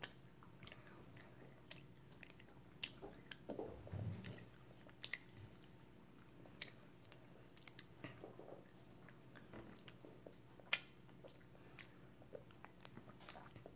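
A child chewing soft taffy candy (cherry Airheads): faint, wet mouth clicks and smacks scattered throughout, with a few sharper clicks.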